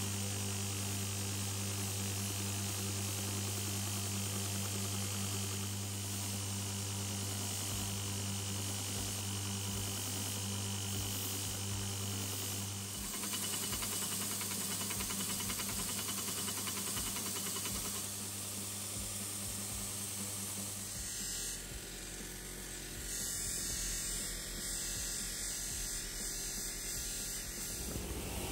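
Electric bench sanding and grinding machines running steadily as the steel pipe wrench is held against an abrasive belt and then a spinning wheel, a motor hum with a buzz. The tone shifts about 13 seconds in and again about 21 seconds in.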